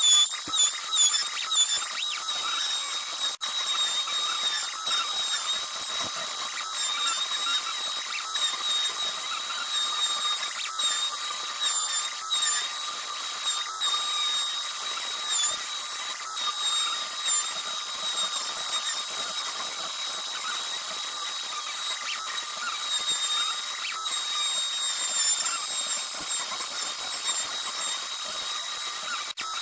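CNC Shark router spindle running with a steady high-pitched whine while its V-bit carves wood. The pitch dips briefly several times in the first couple of seconds as the cutter takes load.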